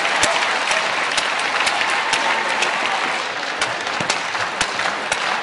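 Spectators applauding a point just won, a dense, steady wash of clapping with sharper single claps standing out through it.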